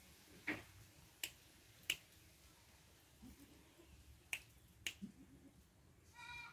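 Fingers snapping five times at uneven intervals to call a young spotted dove. Near the end there is a brief high-pitched chirping sound.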